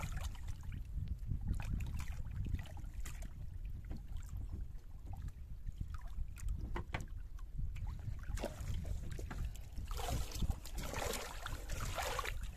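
Seawater splashing and sloshing as a hand and arm work in the water beside a small boat, over a steady low rumble of wind on the microphone, with scattered sharp knocks. The splashing grows louder about ten seconds in.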